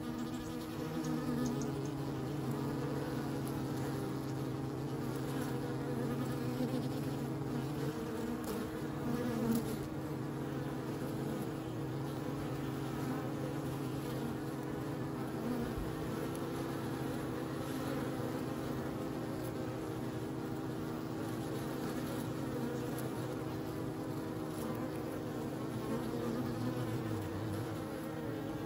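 Many honeybees flying around a hive entrance, their wingbeats blending into a steady buzzing drone with several slightly wavering pitches as bees come and go.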